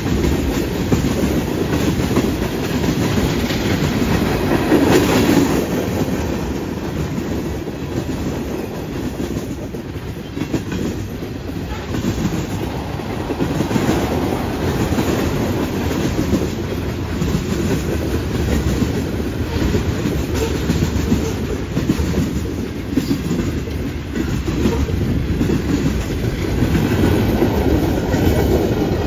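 Freight train of tank cars and covered hoppers rolling past close by: a steady rumble of steel wheels on rail, with repeated clicks as the wheels pass over rail joints.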